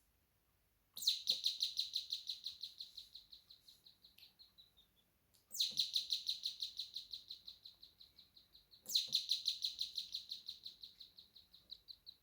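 Electronic bird-chirp doorbell circuit built from two NE555 timer ICs, sounding three times: each time a rapid train of high chirps, about seven a second, that fades away over three to four seconds. A faint click comes at the start of each train.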